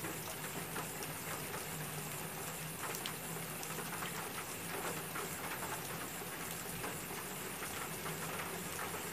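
Steady patter of light rain: many small ticks over a faint hiss, with a low steady hum underneath.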